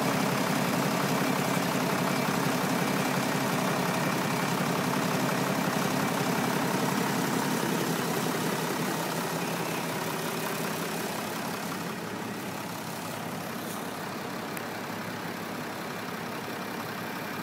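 Farm tractors' diesel engines running as they pull a loaded silage trailer through the field, growing fainter about halfway through as they move away.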